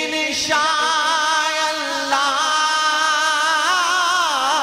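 Naat singing: one long, ornamented held note with vibrato, the pitch climbing about half a second in, then wavering and sliding down near the end.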